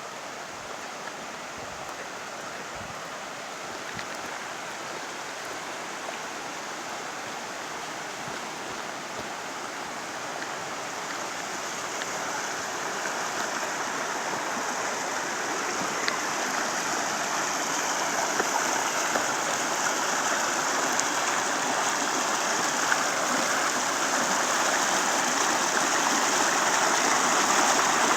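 Rushing water of a mountain creek, a steady hiss growing gradually louder throughout.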